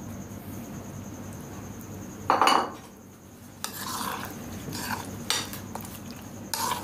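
A utensil clattering and scraping against cookware as egg mixture is mixed into cooked vegetables: one loud clank about two seconds in, then several shorter knocks and scrapes.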